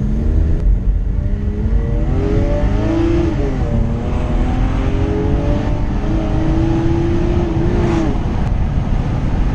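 Car engine under hard acceleration, its pitch climbing, dipping briefly about three seconds in at a gear change, then climbing again and holding before easing off near the end.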